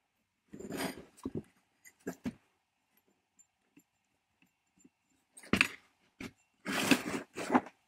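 A 1930s Cutawl rotary jigsaw being handled, turned over and set down on a wooden workbench: knocks and short scrapes of its metal body on the wood. A few come in the first two seconds, then a louder cluster of knocks fills the last two and a half seconds.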